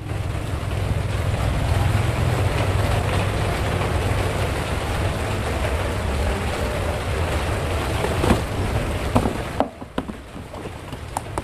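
Wind buffeting the microphone outdoors: a steady low rumble with hiss. It drops away about ten seconds in, leaving a few light clicks and taps.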